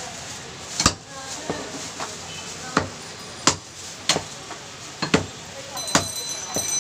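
Butcher's cleaver chopping beef on a round wooden log chopping block: seven sharp chops, irregularly spaced from under a second to about two seconds apart.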